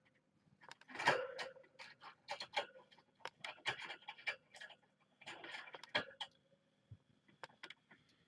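Irregular clicks and taps, some in quick clusters.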